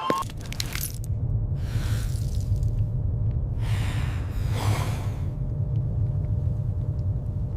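A low, steady rumble with two hissing whooshes swelling over it, one about two seconds in and a longer one around the middle.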